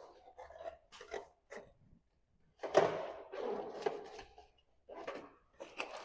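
A banner stand's carrying case being handled and opened: a run of irregular rustles and scrapes, with the longest and loudest about three seconds in.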